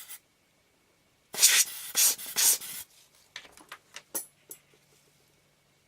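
Lens tissue rubbing briskly over a lens element for about a second and a half, then a few light clicks and taps as the small lens parts are handled.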